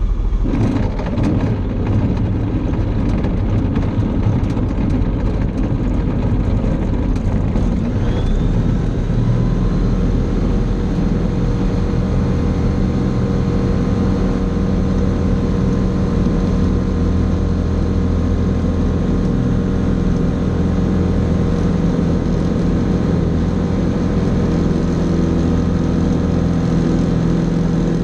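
Fly Synthesis Storch S ultralight heard from inside the cockpit on a touch-and-go: for the first several seconds the wheels knock and rattle over the grass runway under the engine noise. About eight seconds in a whine rises in pitch, then the engine and propeller settle to a steady drone as the aircraft climbs away.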